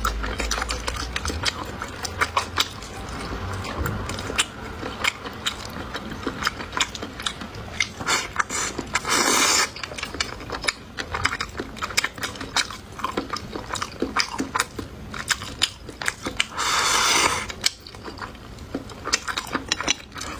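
A person chewing and crunching food close to the microphone: a dense run of sharp crunching clicks, with two short hissy bursts about 9 and 17 seconds in.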